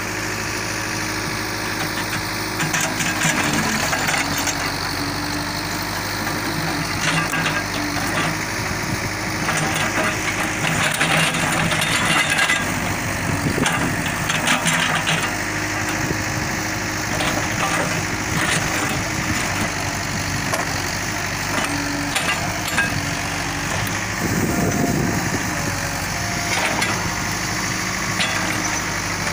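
Case backhoe loader's diesel engine running steadily, its note shifting under hydraulic load as the backhoe arm and bucket push soil back into a trench. Short, scattered clatters of earth and stones come throughout.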